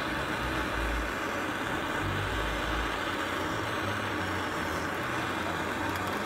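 Handheld gas soldering torch burning with a steady rushing noise, heating a copper faucet pipe for tin soldering.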